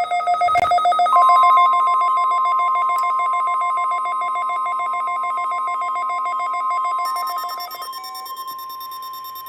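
Weather radio alert tones. A rapid pulsing electronic beeping sounds, and about a second in a steady single-pitch warning tone near 1050 Hz (NOAA Weather Radio's warning alarm tone) starts under it. The beeping stops near the end while the steady tone holds on.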